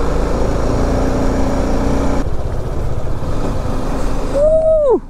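BMW G 310 RR's single-cylinder engine running under way, with wind rush on a helmet-mounted mic; the engine note changes about two seconds in. Near the end comes a short falling vocal exclamation.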